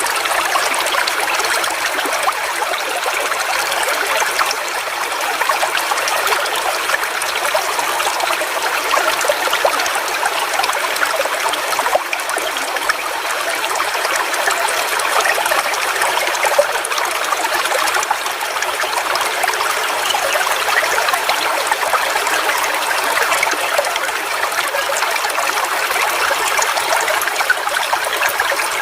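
Forest waterfall: water falling and splashing in a steady, even rush with no pauses.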